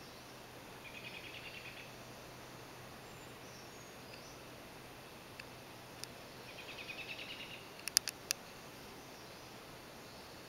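Songbirds in the early morning: a short, rapid trill about a second in, repeated around six to seven seconds, and three sharp ticks near eight seconds, over a faint steady background hiss.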